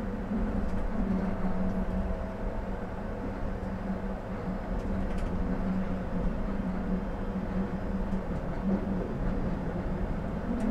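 Tram running along street track, heard from inside the driver's cab: a steady low hum over a rolling rumble, with a few faint clicks.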